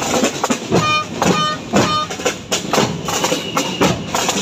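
Hand-held frame drums beaten by marchers in a steady walking rhythm, several strokes a second, with short tooting notes that repeat in the same phrase about every four seconds.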